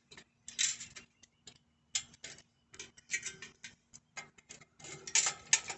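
Irregular metal clicks and scrapes of tools and bolt hardware while a bicycle brake is being fitted to the frame, growing busier near the end.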